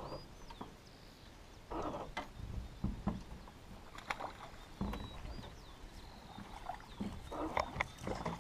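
Water lapping and slapping against a small fibreglass boat's hull in short splashes, with a few sharp knocks.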